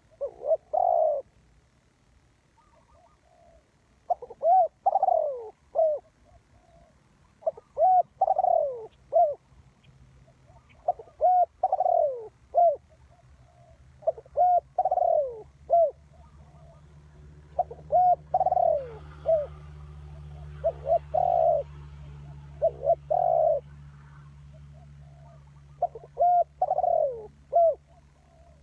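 Spotted dove cooing: about nine repeated phrases of several falling coos, one every three to four seconds, with a low steady hum underneath from about halfway through.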